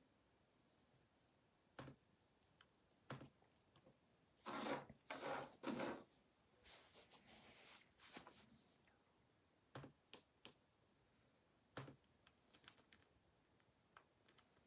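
Scattered faint clicks and taps in a quiet room, with three short, louder rustling sounds close together about halfway through.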